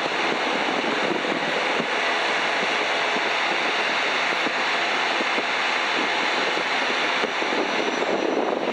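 Piper PA-12 Super Cruiser's engine and propeller running at takeoff power during the takeoff run and climb-out. It is a steady, dense noise with wind rushing over it.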